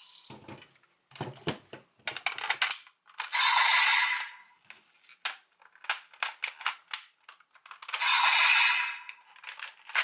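Hard plastic clicking and clacking as the DX Oneness Raise Buckle toy is snapped onto the Desire Driver belt and its parts are worked. Two short electronic sound effects from the toy's speaker come in, about three seconds in and again near the end.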